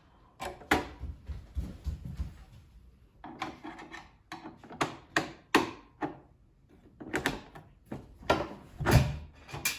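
Irregular clicks, knocks and scraping from a kitchen pan drawer as the fixing behind its cross mark is turned and the wooden drawer front is worked loose.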